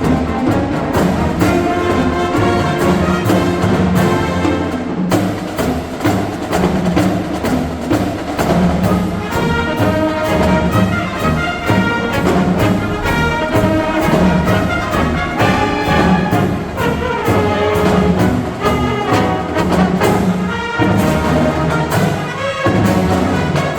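Marching band playing: brass instruments carry the melody over a steady percussion beat.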